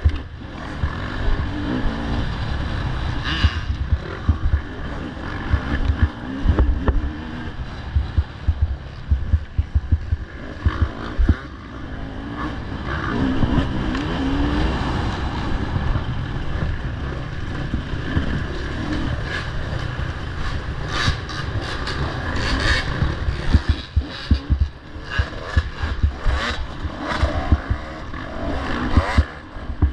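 Off-road racing motorcycles running and revving as they pass, their engine pitch rising and falling several times. A heavy low rumble of knocks runs underneath, and sharper clatter comes in the second half.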